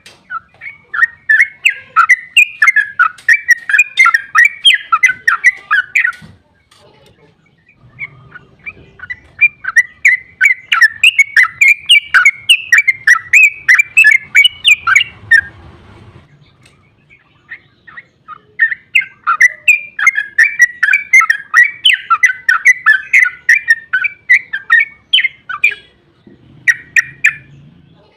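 Yellow-vented bulbul (trucukan) singing its long, rapid-fire 'ropel' chatter: three runs of quick, loud, bubbling notes lasting several seconds each, with short pauses between, and a brief burst near the end.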